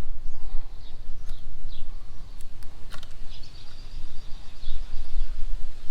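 A steady low rumble of outdoor noise, with scattered short high chirps and one longer high note about three to five seconds in, plus a few faint clicks.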